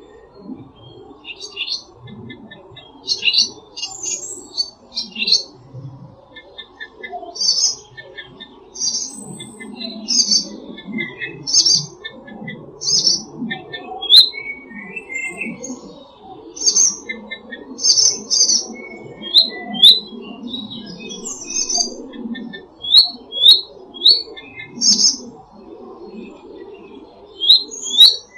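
Wild songbirds singing: short high chirps repeated roughly once a second, joined in the second half by a series of short slurred notes, over a steady low background rumble.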